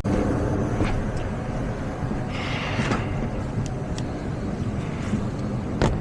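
HVAC system running steadily: a blower hum with air moving through the ductwork, broken by a few light clicks and handling knocks.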